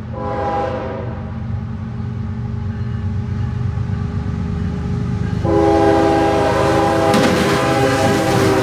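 CSX freight train's diesel locomotives approaching and passing close by, sounding a horn chord of several notes: a short blast at the start, then a long blast from about five and a half seconds in. Under the horn the engines' low rumble grows louder, with wheel-on-rail clatter near the end as the locomotives go by.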